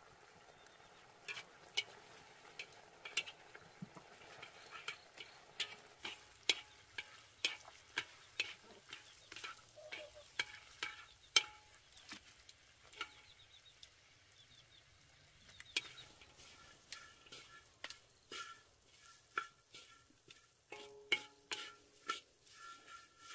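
Wooden chopsticks stirring strips of jam mixture in a metal wok, knocking against the pan in sharp clicks about once or twice a second over a faint sizzle.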